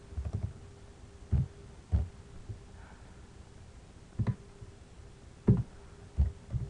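Keyboard keystrokes and mouse clicks picked up by the microphone as short, dull thumps at irregular intervals, a quick cluster at first and then single ones, over a faint steady hum.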